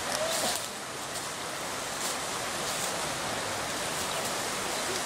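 Steady rushing of running water, an even hiss without a beat.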